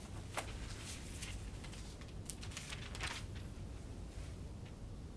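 Faint rustling and crinkling of thin Bible pages being turned while a passage is looked up: a handful of short, soft crackles over a low steady room hum.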